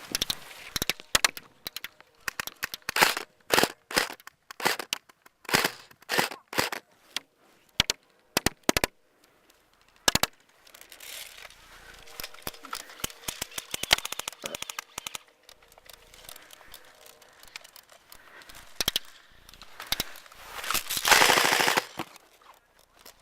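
Airsoft guns firing: sharp clacks and quick bursts, with a long full-auto burst near the end that is the loudest part.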